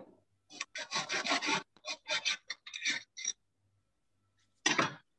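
A run of short, dry rasping rubs and scrapes over the first three seconds or so, then a pause and one more rasp near the end.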